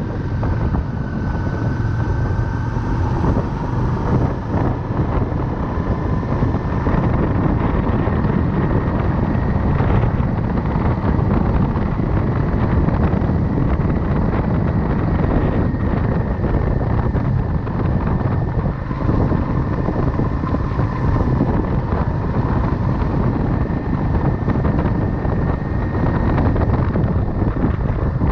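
Motorcycle running at a steady cruising speed, its engine and tyre noise under heavy wind buffeting on a chest-mounted microphone, with a faint steady whine that slowly rises a little in pitch.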